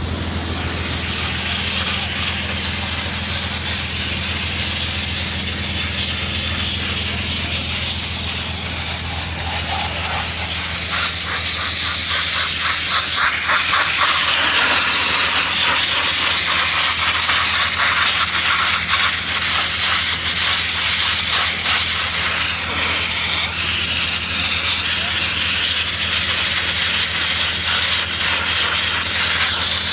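High-pressure wet abrasive blasting: the water-and-grit jet from a Sandbot blaster's 6.5 mm nozzle hisses loudly and steadily over the constant low drone of an Atmos PDK 33 towable diesel air compressor running under load. The hiss grows louder about a third of the way in.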